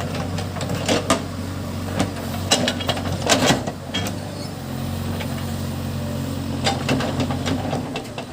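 Case backhoe loader's diesel engine running steadily under work, with irregular sharp knocks and clanks. The engine note changes about halfway through.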